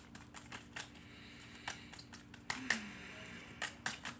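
Tarot cards being handled and shuffled: irregular soft clicks and snaps of the cards, with a brighter cluster of them about two and a half seconds in.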